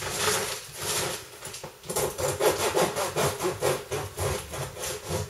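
A knife sawing through a loaf of five-grain sourdough bread with regular back-and-forth strokes that quicken after a short pause, about two seconds in. The knife is not a proper bread knife.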